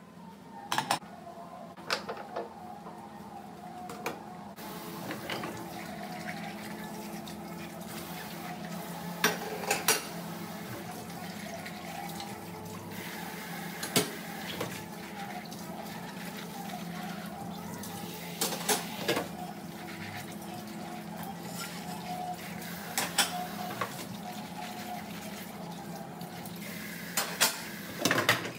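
Kitchen tap running steadily into a sink, with sharp clinks of ceramic plates knocking together every few seconds as dishes are washed by hand.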